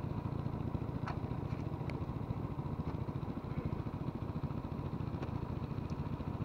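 Steady low rumble of a small engine running at an even idle, with a couple of faint clicks about a second and two seconds in.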